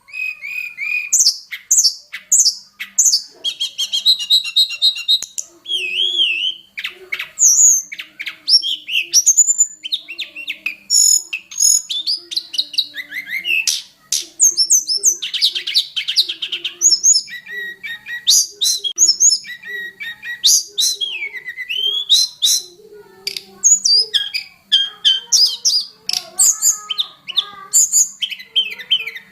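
Tledekan gunung songbird singing a fast, varied song packed with mimicked phrases: many short high whistles, rapid trills and rising and falling glides, one after another with hardly a pause.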